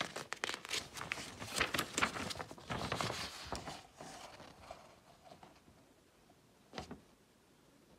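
Paper leaflet crackling and rustling as it is unfolded and handled, dense for the first few seconds, then mostly quiet with one short rustle near the end.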